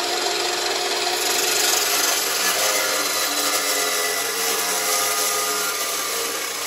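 SteelMax dry-cut (cold-cut) chop saw with a Diablo blade cutting at an angle through thick-walled 2 3/8 inch steel drill pipe, a steady loud cutting noise with a faint high ring in it, taking off half the pipe end to form a saddle.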